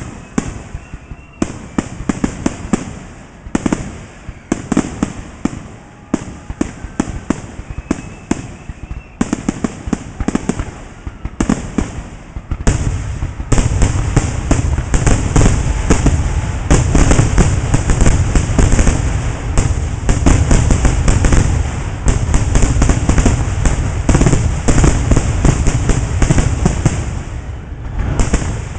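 Fireworks going off in a rapid crackling barrage. Scattered sharp cracks at first, then from about halfway through a much denser, louder run of bangs and crackles with deep booms.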